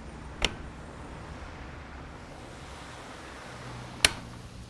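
Steady low hum under a faint hiss, with two sharp clicks, one about half a second in and one near the end.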